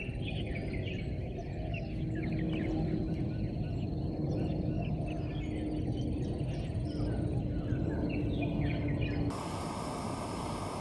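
Many wild birds chirping and calling among trees, in quick overlapping short calls over a low background rumble. About nine seconds in the bird calls stop abruptly, giving way to a steady hiss.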